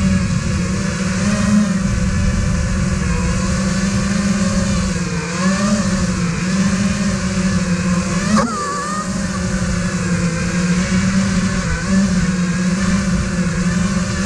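Brushless motors and propellers of an iFlight Nazgul 5 FPV quadcopter buzzing steadily, heard from the GoPro mounted on the drone, with the pitch wavering as the throttle changes. A quick sharp flick in pitch about eight and a half seconds in.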